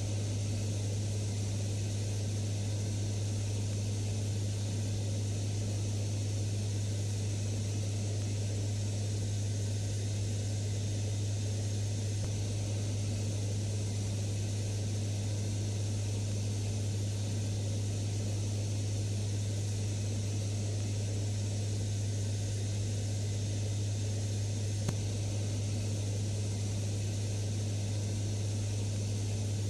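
Turboprop engines and propellers of a WC-130J hurricane hunter aircraft droning steadily in cruise, heard from inside the cabin: a strong, even low hum under a constant rushing noise.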